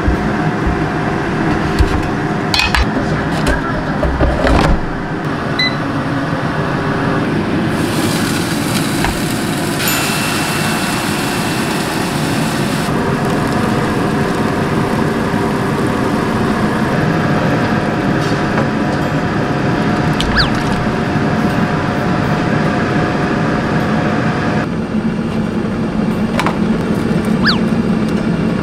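Steady machine hum and whir that shifts slightly in tone at several points, with a couple of brief knocks in the first few seconds.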